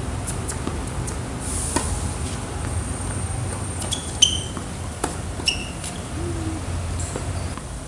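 Tennis ball being struck by rackets and bouncing on a hard court during a rally: a handful of sharp hits, the loudest about four seconds in, two of them followed by a short high squeak, over a steady low rumble.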